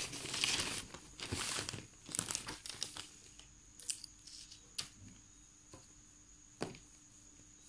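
Paper and cardboard rustling and crinkling as a paper-covered shoebox is handled, busiest in the first few seconds. Then a few separate light taps and clicks.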